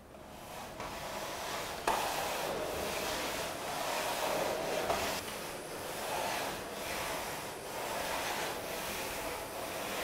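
Thomas central vacuum floor nozzle pushed back and forth over a wood-look hard floor. The sound is mostly the nozzle rubbing on the floor, swelling and falling with each stroke, over a soft suction hiss. The suction unit itself stands in a separate utility room, so no vacuum motor is heard.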